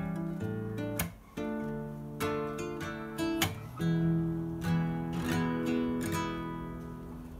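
Old Soviet-made acoustic guitar, just repaired, strummed in changing chords, with sharp strokes about once a second and a brief break about a second in.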